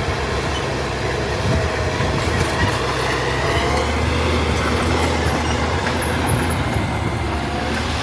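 Crawler bulldozer at work: its diesel engine runs steadily under load while the steel tracks give off squeals that rise and fall.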